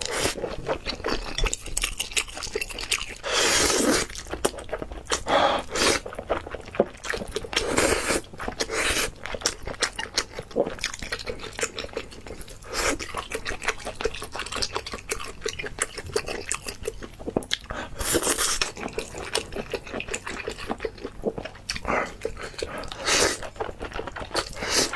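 Close-miked eating: wet chewing and smacking mouth sounds, with louder bites every few seconds.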